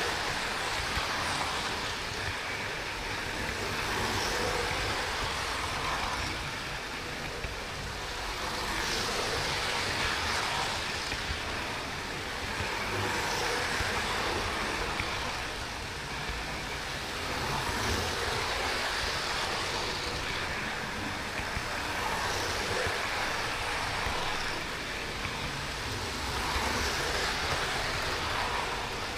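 Model trains running on the track: a steady rolling clatter of wheels on rails, heard close up from the camera riding on one train, swelling and easing every few seconds as the other train's coaches run past on the adjacent track.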